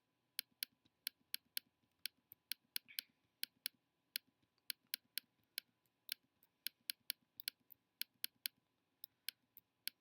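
Computer mouse clicking over and over at an irregular pace, about three or four clicks a second, some in quick pairs, as spots are retouched in Photoshop.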